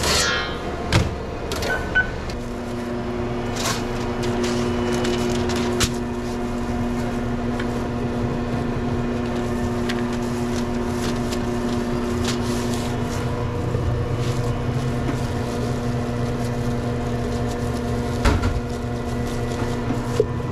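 Sandwich toaster oven beeping once and then running with a steady hum, with occasional clicks and knocks of sandwich-making over a constant kitchen background.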